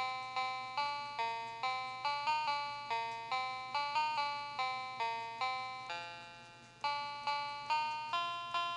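Citizen chicken alarm clock's electronic chime playing a user-programmed melody: a run of short pinging notes, about two or three a second, with one longer note fading out about six seconds in before the tune picks up again.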